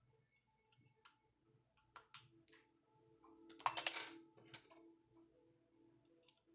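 Small clicks and metallic clinks of a hand driver and screws while the screws of an RC truck wheel are snugged down by hand, with a louder metallic clatter a little past the middle.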